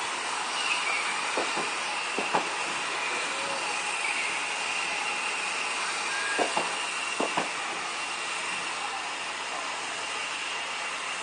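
Steam hissing steadily from a standing steam locomotive, No. 461. A few sharp knocks cut through it, two early on and two close pairs about six and seven seconds in, as the wheels of a slow-moving DART electric train cross rail joints.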